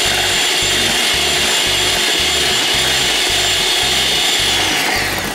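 Vitek electric hand mixer whirring steadily at high speed, its whisk beaters churning liquid batter of eggs and kefir in a bowl. Near the end it winds down in pitch and stops.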